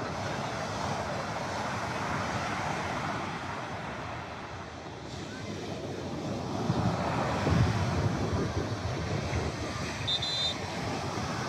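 Small waves breaking and washing on a sandy shore, with wind buffeting the microphone, gusting hardest about two thirds of the way in. A brief high beeping sounds near the end.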